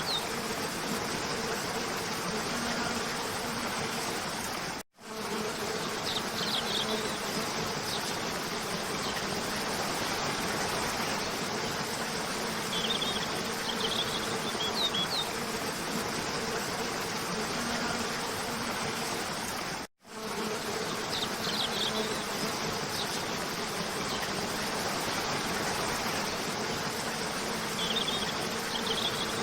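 Steady rushing of a cascade waterfall, with a faint low buzz underneath and groups of short, high spring bird chirps every several seconds. The whole track cuts out for an instant twice, about fifteen seconds apart, and the chirp pattern repeats at the same spacing, as in a looped recording.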